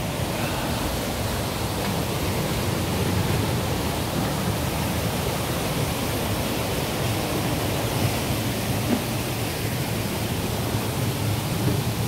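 Steady rushing of a mountain gorge stream: an even wash of water noise with no breaks.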